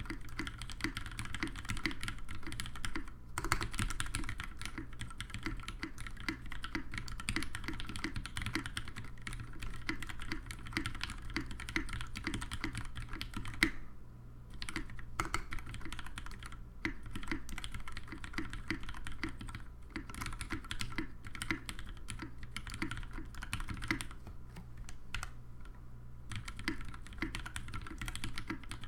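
Typing on a Singa R1 WKL mechanical keyboard with lubed, retooled Cherry MX Black linear switches on a brass plate: a steady run of key presses, broken by a few brief pauses.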